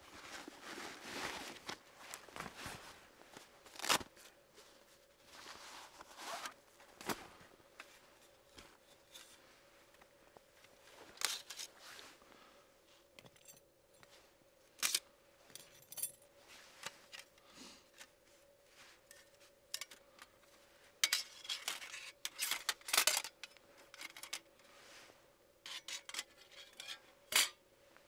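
Metal panels of a Firebox folding camp stove clinking and scraping as it is unfolded and fitted together, in scattered sharp clicks with a busier run of them about three-quarters of the way through.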